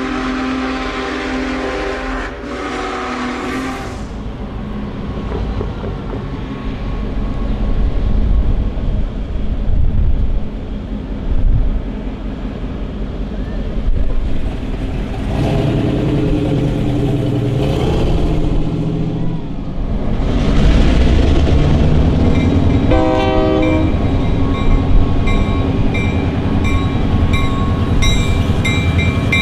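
EMD GP38-2 diesel locomotive running, its V16 two-stroke engine a steady low rumble, with long air-horn blasts near the start and again about halfway, and a short blast a little later. From about three-quarters of the way in, a bell rings steadily and evenly.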